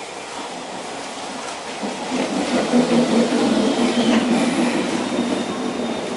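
CPTM Série 1100 electric train at the platform, its traction motors growling loudly: a low drone that builds about two seconds in and then holds. A few clicks from the wheels over rail joints run through it.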